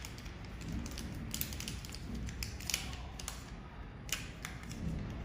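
Scattered small clicks and taps of the protective lens and its holder being handled as they are swapped in a handheld fiber laser welding head, over a steady low rumble. The sharpest clicks come about one and a half, two and a half and four seconds in.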